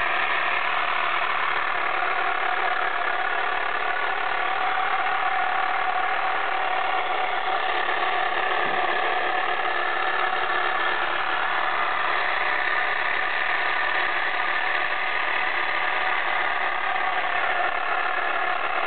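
Small battery-powered electric motor of a vintage Japanese wooden toy motor boat running steadily, a continuous whir as it spins the propeller in air out of the water.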